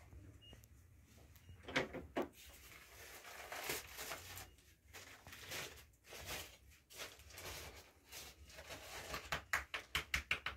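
Plastic bag crinkling as it is handled and opened, in irregular rustles that become quick and dense near the end.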